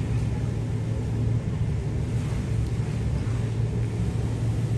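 Steady low engine rumble with an even hiss over it.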